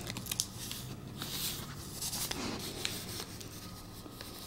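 Soft, faint rustling with scattered light clicks as a dog noses and sniffs at a plastic-wrapped chew stick and the packaging in an open box.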